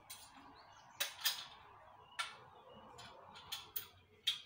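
Sharp clicks and taps from the LNB holder on a satellite dish's feed arm being handled and fitted, about six at irregular intervals.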